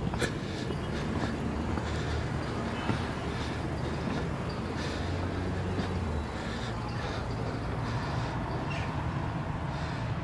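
Road traffic below: a vehicle engine's low hum, strongest for a couple of seconds around the middle, with a few scattered light clicks.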